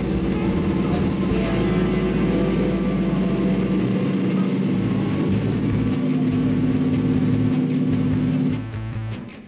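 Diesel railcar's engine heard from inside the carriage as the train runs, a steady hum that steps up in pitch about six seconds in and drops away near the end.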